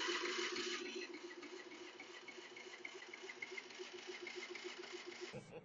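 Predator 3500 inverter generator's electric starter cranking the engine, an even pulsing beat that cuts off near the end without the engine catching. It will not fire because the ignition is producing no spark, traced to a faulty ignition control module.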